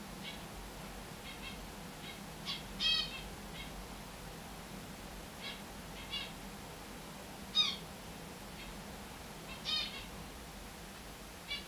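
Finches calling: about ten short single calls, scattered a second or two apart, the loudest about three seconds in and again near eight seconds.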